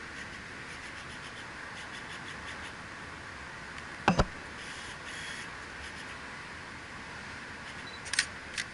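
Canon DSLR shutter firing: a sharp double click about four seconds in, then two lighter clicks near the end, over a steady background hiss.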